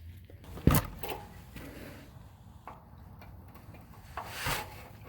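Tools and car parts being handled during a repair: a sharp knock just under a second in, a few faint clicks, and a brief rubbing or scraping sound near the end.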